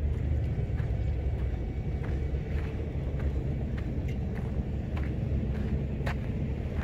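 Steady low outdoor rumble, with faint footsteps on loose dirt about once a second as the person filming walks.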